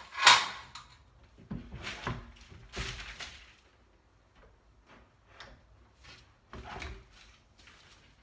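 A series of knocks and clunks as a long level is set down on a wooden ledger board and a particleboard wall cabinet is shifted by hand. The loudest knock comes right at the start, with a cluster in the first three seconds and fainter ones after.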